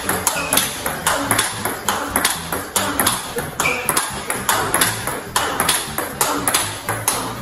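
Table tennis rally in a footwork drill: the ball is struck by rubber-faced paddles and bounces on the table in a quick, even run of sharp clicks, about three a second.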